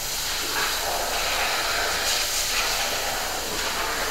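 A steady hiss, a little stronger through the middle.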